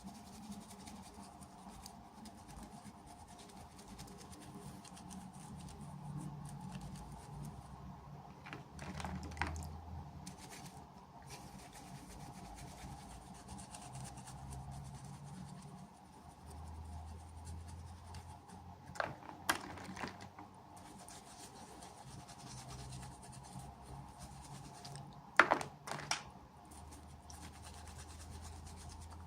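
Soft rubbing and scratching from hands handling small plastic miniatures and their packaging, with a few sharp clicks and taps, the loudest about three-quarters of the way through.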